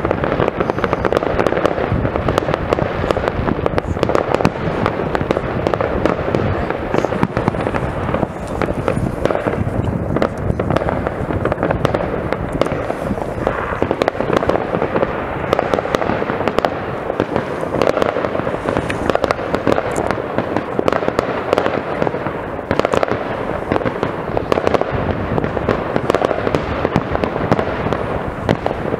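Many fireworks going off at once across a town, a dense, unbroken stream of overlapping bangs, pops and crackles.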